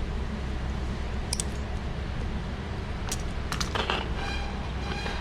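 Light clicks from handling small plastic emblem parts, with a squeaky scrape near the end, over a steady low hum.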